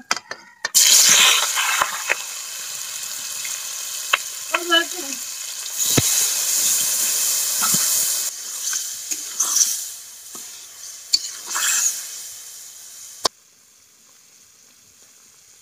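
Spice-coated pomfret pieces dropped into hot oil in an iron karai: a loud sizzle breaks out about a second in and goes on as steady frying, with a few light clicks. It fades and then cuts off abruptly near the end.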